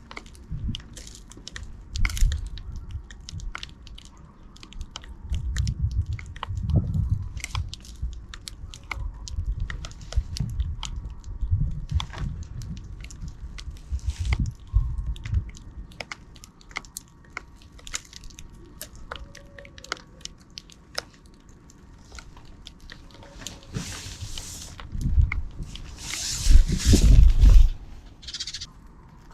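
Sparrows pecking at seed close to the microphone: a rapid, irregular run of sharp clicks and taps over soft low thumps, with a louder cluster of bumps and scuffling near the end.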